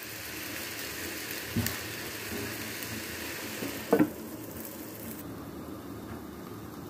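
Chopped water lily stems frying in a kadai with a steady sizzle. A light knock comes about a second and a half in, and about four seconds in a glass lid is set on the pan with a clink; soon after, the sizzle turns duller under the lid.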